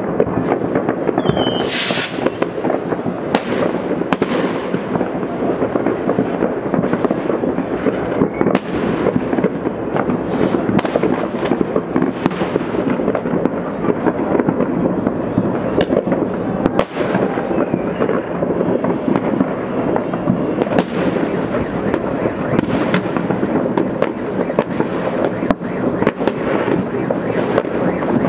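Fireworks going off all over a city: a continuous mass of distant bangs and crackles with sharper single bangs scattered through it, and a brief hiss about two seconds in.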